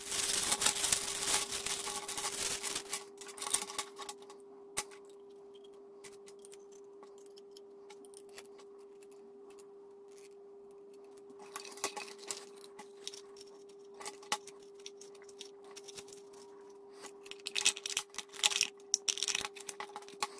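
Crinkling of a plastic parts bag being opened, then clicks and rustling as the clear plastic tubes and body of a Jeneca XP-03 mini cascade filter are handled and pushed together. A faint steady hum runs underneath.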